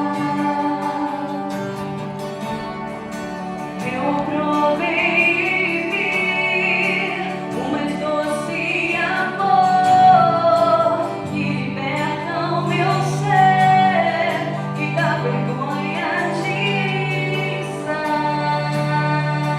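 A slow, reflective Christian worship song played live: a sung melody over guitar and sustained low notes.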